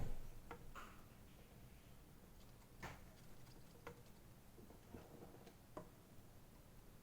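A few faint, irregular clicks and taps, the loudest right at the start, over quiet room noise.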